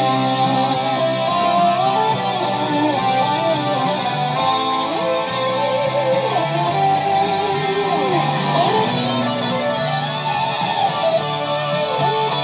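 Guitar-led background music with electric guitar over a stepping bass line and a steady beat.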